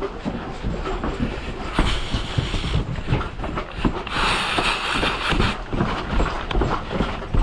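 Irregular low knocks and rattling from a player moving with gear, with two stretches of hissing noise, one about two seconds in and one about four seconds in.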